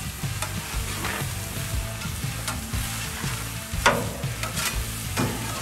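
Beef burger patties sizzling on a hot charcoal-fired grill grate, with metal spatula scrapes and clicks against the grate as the patties are turned. The loudest click comes about four seconds in, and another comes near the end.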